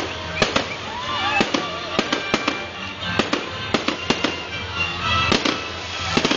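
Aerial fireworks going off: an irregular string of sharp bangs and crackles, a few each second.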